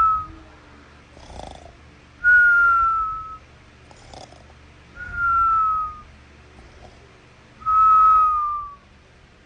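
Whistling snore: a thin whistle, falling slightly in pitch and about a second long, sounds on every breath, three more times after one ending at the start, with soft breaths between.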